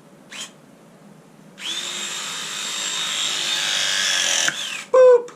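Battery-powered PEX crimp tool's motor running steadily for about three seconds as it presses a fitting onto the pipe, with a slowly falling whine. The motor winds down, then a short, loud mechanical sound comes near the end as the jaws release.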